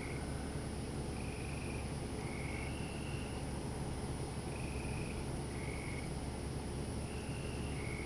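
Night chorus of frogs and crickets: short, clear notes about once a second at slightly different pitches, as several callers answer one another, over a steady high insect drone.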